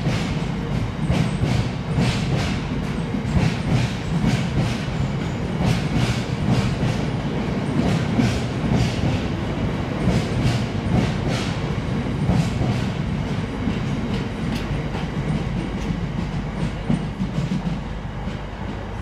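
Freightliner open box wagons of a freight train rolling past, a continuous rumble with rapid clacks from the wheels over the rail joints. The sound eases slightly near the end as the last wagon goes by.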